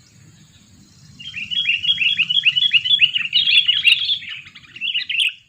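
Sooty-headed bulbul (kutilang) calling: a quick, chattering run of short notes, each sliding down in pitch. It starts about a second in and goes on for about four seconds before stopping abruptly.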